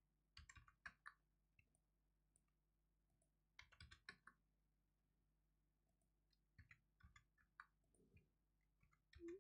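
Near silence broken by faint computer keyboard taps and mouse clicks, in three short clusters as numbers are typed into fields.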